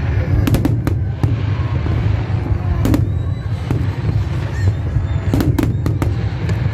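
Aerial fireworks display: a continuous deep rumble of bursting shells, with sharp cracks in a cluster about half a second to a second in, another near three seconds, and a further cluster around five and a half seconds in.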